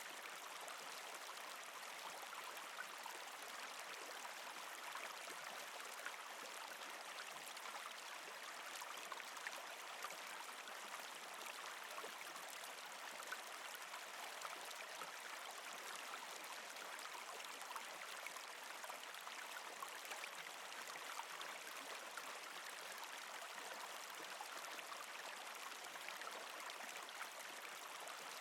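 Mountain stream babbling over rocks: a steady, even rush of water flecked with small splashes and gurgles.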